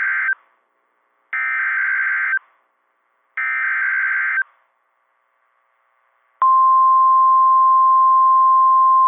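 NOAA Weather Radio Emergency Alert System SAME header: the tail of one burst of digital warbling data, then two more bursts about a second long, a second apart. About six seconds in, the steady 1050 Hz Weather Alert Tone starts and holds, announcing a new warning broadcast.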